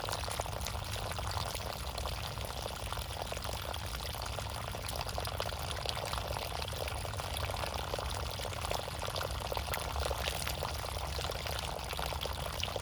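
Water pouring and splashing steadily, a dense, even splashing with a low rumble underneath.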